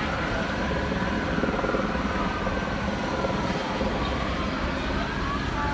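Emergency-vehicle sirens wailing, their pitch rising and falling slowly and overlapping, over a steady low rumble of engines.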